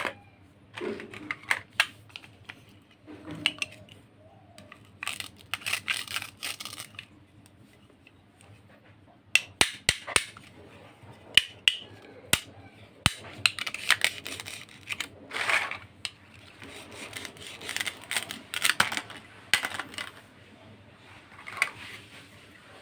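Small plastic toy pieces being handled, with scattered sharp clicks and taps and short bursts of scraping and rustling. A quick run of crisp clicks comes about halfway through.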